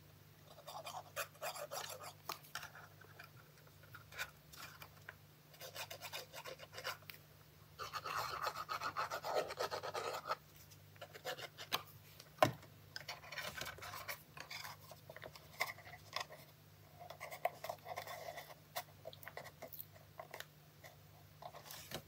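Cardstock being folded, pressed and handled: quiet paper rubbing and scratching with small taps, a longer stretch of rubbing about eight seconds in and a sharp tap near the middle. A faint steady hum sits underneath.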